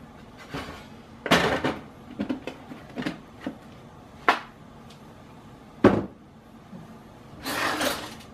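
A plastic lid being pressed onto a plastic tub of lard: a rustle and a run of small clicks, then a sharp knock about six seconds in as the tub is put down, and a short scuffing noise near the end.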